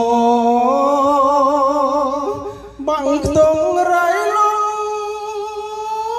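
A song playing loudly through an IN Power Pro Max karaoke PA speaker with subwoofer: a singer holds two long notes with vibrato, the second higher, with a short hit about three seconds in. The deep bass drops out for this passage.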